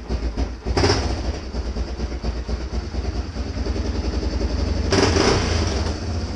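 A 1990 four-wheeler's engine idling with a steady, rhythmic chug just after starting on a nippy night, picking up briefly twice: about a second in and again around five seconds in.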